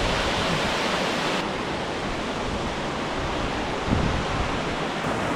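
Steady rush of a large waterfall's falling water close by, with some wind on the microphone.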